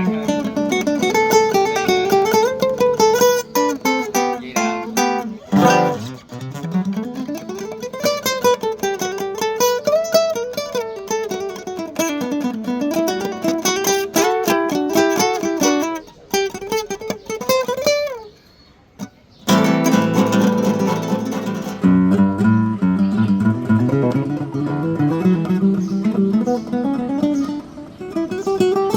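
Yamaha CG162C classical guitar with Savarez 500CJ nylon strings played solo: quick runs of single plucked notes rising and falling in pitch. The playing breaks off briefly about two-thirds of the way through, then starts again.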